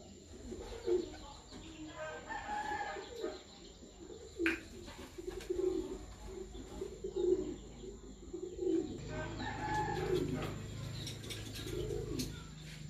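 Birds calling, a short low call repeated about once a second; a low steady hum joins about nine seconds in.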